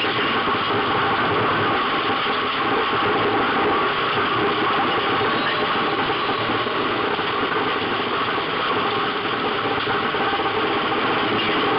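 Race car's engine running at speed, heard from inside the cockpit: a loud, steady, dense din of engine and drivetrain with road noise from the dirt track.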